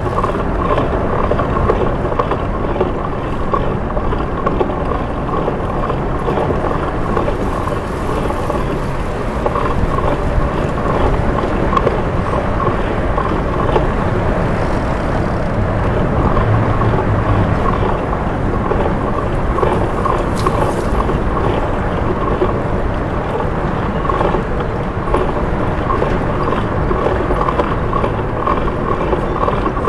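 Steady rush of wind and road noise on a body camera worn by a cyclist riding a Citi Bike through city streets, with traffic mixed in. A short sharp sound comes about twenty seconds in.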